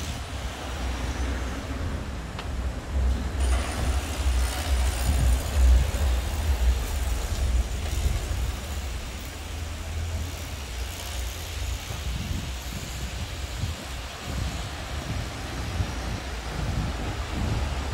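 City street ambience: traffic noise with a steady low rumble that eases after about twelve seconds, loudest around four to seven seconds in.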